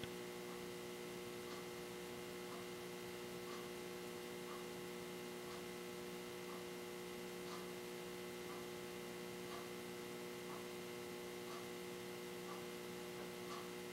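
Steady electrical hum of several held tones, with faint soft ticks about once a second.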